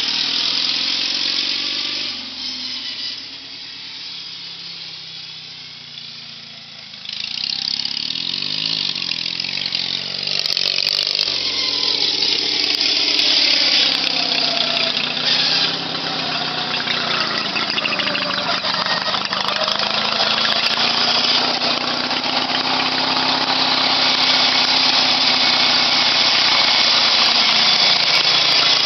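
Riding lawn mower's engine running as the mower drives across the lawn. It is quieter a few seconds in, then grows louder and is loudest near the end as the mower comes close.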